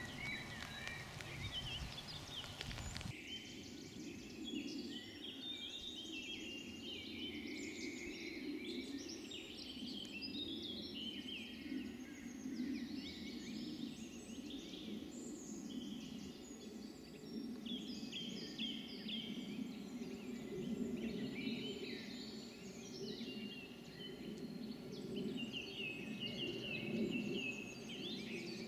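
Woodland birdsong: several small birds singing and calling in quick, overlapping phrases over a low, rough background noise.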